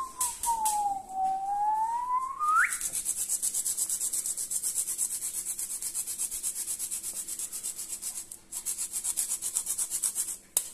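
Lime zest being grated on a small handheld metal grater: rapid, even rasping strokes, many a second, with a brief pause near the end. Before the grating starts, about the first two and a half seconds hold someone whistling one note that dips and then rises.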